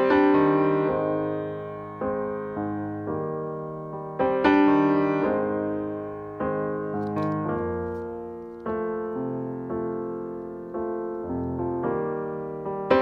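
Background solo piano music: slow chords struck and left to fade, with a fuller chord about every four seconds.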